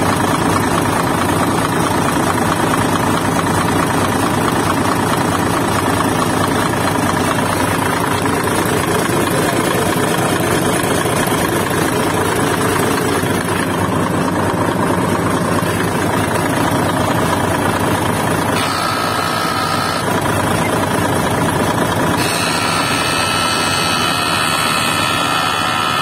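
Heavy truck diesel engine idling steadily, heard close up. A higher-pitched whine joins briefly about two-thirds of the way in and again near the end.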